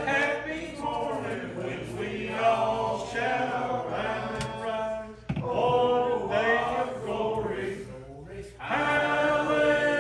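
Congregation singing the chorus of a gospel hymn together, with a short breath between lines about five seconds in.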